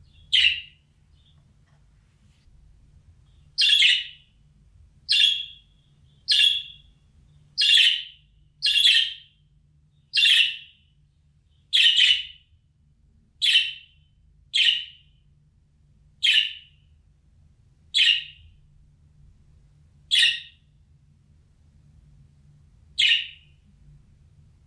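A budgerigar giving short, loud contact calls one at a time, about fourteen of them, every one to two seconds, with a longer pause after the first and the gaps widening near the end.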